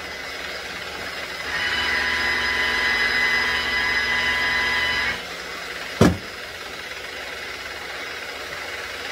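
Electric buffing machine running steadily with a constant whine while polishing an aluminum rocker box with fine compound; it gets louder for a few seconds near the start, then drops back. A single sharp knock about six seconds in.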